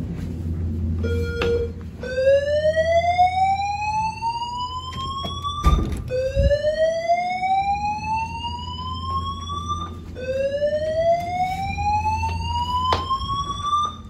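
Fire alarm evacuation speakers of a Notifier voice-evacuation system sounding the slow whoop tone: three rising sweeps of about four seconds each, back to back, the last one cut off abruptly. A single thump lands just before the second sweep.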